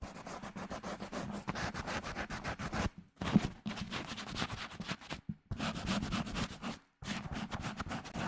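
A microphone being scratched directly, close up, in quick rubbing and scratching strokes. The strokes come in spells, broken by short pauses about three seconds in and again near seven seconds in.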